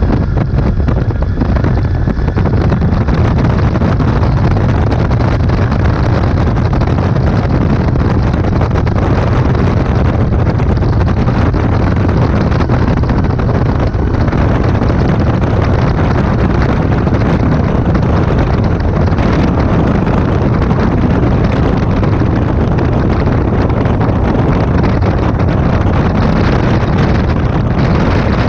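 A light aircraft's piston engine and propeller running steadily, mixed with rushing wind noise on the microphone.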